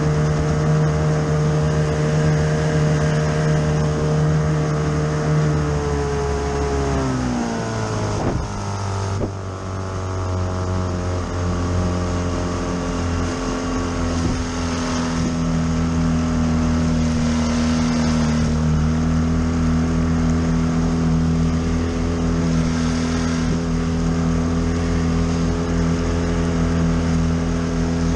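Mercury Mark 28 two-stroke outboard motor on a small hydroplane, running fast. About six to eight seconds in its pitch drops steeply as the boat slows, then it runs steadily at a lower speed.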